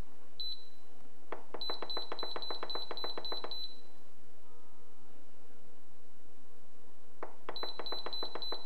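Instant Pot electric pressure cooker's control panel beeping as its button is pressed over and over to set the cooking time: a single beep about half a second in, then a quick run of about five beeps a second, and another run near the end.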